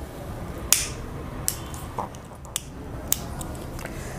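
Hand-held lighter being struck about five times in a row: short, sharp clicks spread over about two and a half seconds, the first the loudest, as it is used to set a kerosene-soaked cloth ring alight.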